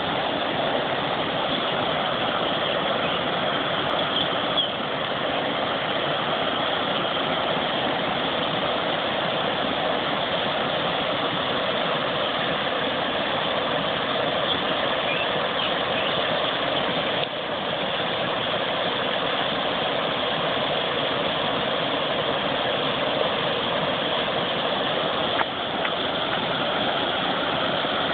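River water rushing steadily over a low rocky rapid, a continuous even rush of white water.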